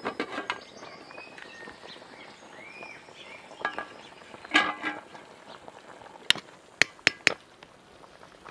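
Sharp metallic clinks of a ladle and lid against a cooking pot, four of them in quick succession a little past the middle. Birds chirp in the background, and there is a short loud call about halfway through.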